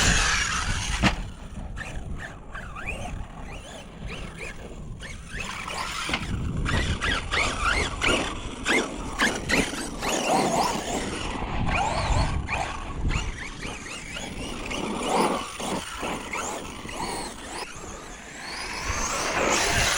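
Arrma Fire Team RC car's brushless electric motor whining, rising and falling in pitch as it speeds up and slows down, with scattered knocks from the chassis and wheels.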